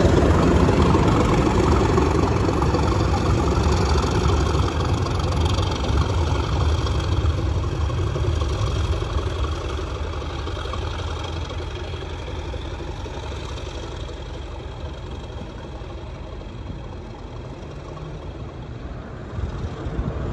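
Class 37 diesel locomotive's English Electric V12 engine working as the train pulls away, its sound fading steadily as it draws into the distance.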